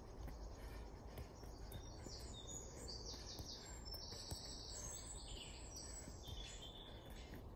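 A songbird singing a string of rapid, high chirping trills, starting about two seconds in and stopping after about six and a half, over steady low background noise.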